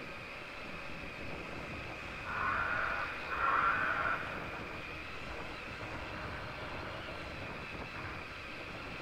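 Electric motor and geared drivetrain of an RC rock crawler whining steadily as it drives, with two louder surges about two and three and a half seconds in, over a low rumble of tyres and chassis.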